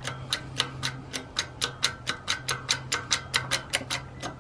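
Quick, even clicking, about four clicks a second, from the hand-pumped bottle jack of a hydraulic shop press being worked to bring the ram down on a bearing driver, pressing a new wheel bearing into a motorcycle hub. A steady low hum runs underneath.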